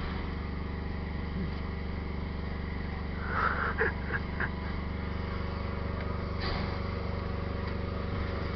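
Steady low mechanical hum with an even, unchanging drone, with a few faint brief sounds about three and a half seconds in.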